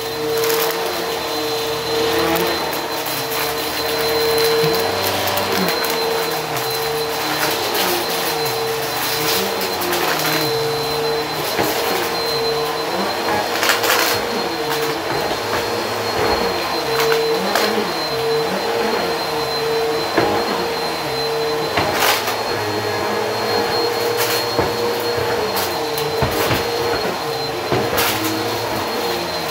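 Bissell Helix upright vacuum cleaner running on carpet with a steady motor whine and a hiss, its lower hum wavering as it is pushed back and forth. A few sharp clicks come through at scattered moments.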